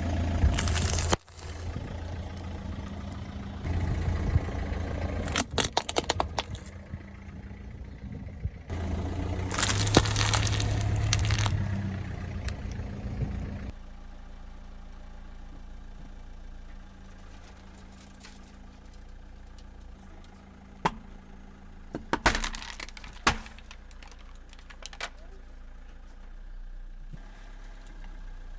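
A car's engine running while its tyres roll over objects, crushing them with crackling and cracking in three loud stretches. Then the engine idles with a few sharp snaps about three quarters of the way through.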